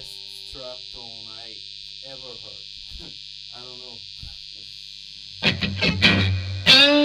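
Electric guitar with hand-wound, late-'60s-style Stratocaster single-coil pickups, played through a hand-built AB763 blackface-style tube amp. There is a steady amp hum and hiss that comes partly from a noisy cable, with a few faint sounds. About five seconds in, loud picked and strummed chords start.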